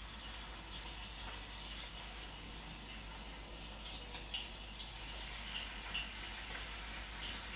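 Steady rush of running water in a kitchen, with a few light clicks.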